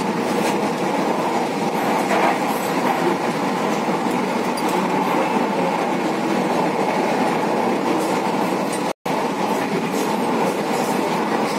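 Kochi Metro train (Alstom Metropolis coach) heard from inside the carriage as it runs along the elevated track: a steady rumble and rush of running noise. The sound drops out completely for an instant about nine seconds in.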